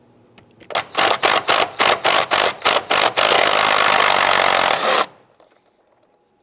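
20-volt cordless power tool driving a socket on an extension to loosen the battery hold-down bolt: about a dozen quick trigger pulses, then a steady run of about two seconds that stops abruptly.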